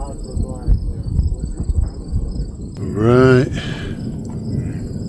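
Insects trilling steadily at a high pitch in the grass, over a low fluctuating rumble. About three seconds in, a man makes one short voiced sound, the loudest thing here.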